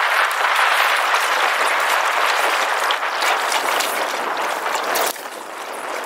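Steady splashy rushing of water lapping against a small boat's hull, easing somewhat about five seconds in.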